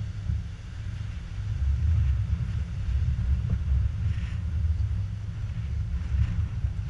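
Wind buffeting the microphone in a loud, steady low rumble, over the fainter hiss of surf breaking and washing across the shore rocks, swelling briefly about two and four seconds in.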